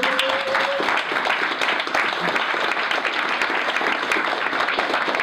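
Audience applauding steadily in a small hall, a dense clatter of many hands clapping.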